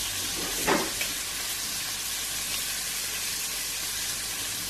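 Bacon sizzling steadily in a frying pan, with one short, louder sound just under a second in.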